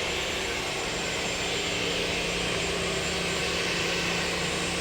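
A steady machine engine running on a construction site, a constant droning hum with a broad noise over it that does not change.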